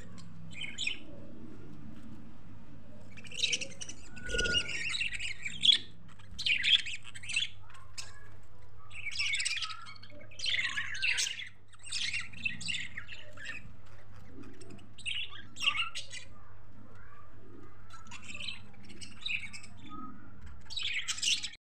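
A flock of budgerigars chattering, with dense clusters of squawks and chirps coming every second or so. A faint steady low hum runs underneath.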